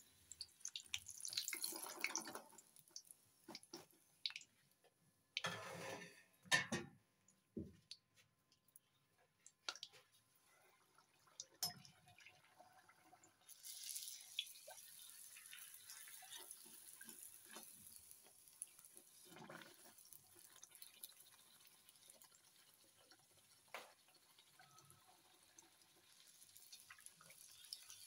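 Gol gappa puris deep-frying in hot oil in a karahi: faint sizzling and crackling, with scrapes and clicks of a metal skimmer against the pan in the first part. A steady frying hiss sets in about halfway through, as fresh puris go into the oil.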